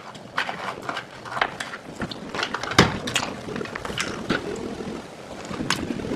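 Scattered small clicks and crackles from a cough drop being unwrapped and eaten, with one sharper click about three seconds in.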